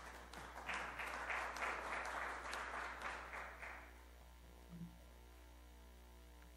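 An audience applauds for about four seconds and the clapping fades out. A steady low electrical hum runs underneath throughout, and there is a soft low thump about five seconds in.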